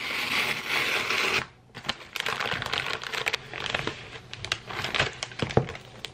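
Cardboard mailer being torn open along its strip, a steady ripping noise for about the first second and a half, then crinkling and rustling of paper and plastic shrink wrap as the wrapped laptop case is slid out and handled.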